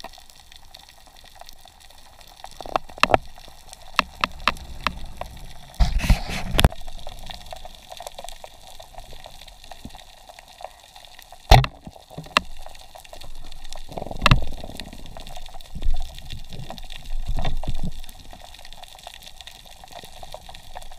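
Water moving and gurgling around a diver underwater, coming in irregular swells, with a few sharp clicks, the loudest a little past halfway.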